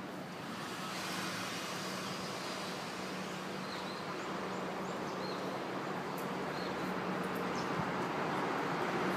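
Steady road traffic noise from nearby roads, growing gradually louder.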